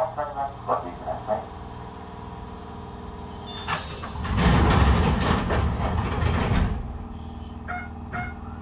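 Electric commuter train standing at a station: a quick run of short electronic beeps, then about three seconds of loud air hiss and rumble as the train's pneumatic doors close, and two short beeps near the end.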